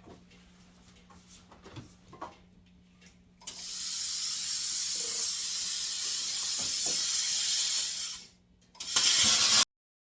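Plasma cutter hissing as it cuts through the car's sheet steel: a steady hiss of about five seconds, a short pause, then a louder burst of under a second that cuts off suddenly. Before it, a few faint clicks and handling knocks.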